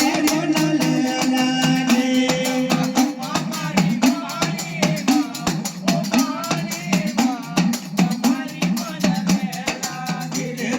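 Live Gujarati dakla folk music: quick, dense rattling percussion strokes under a wavering melody and held instrument tones.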